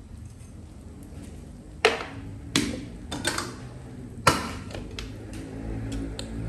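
Sharp knocks and taps against a large aluminium cooking pot, four louder strikes among smaller ones, over the low rumble of water boiling on a gas burner.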